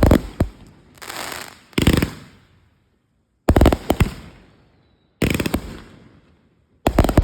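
Consumer fireworks going off: clusters of sharp bangs every one and a half to two seconds, some followed by a brief crackle.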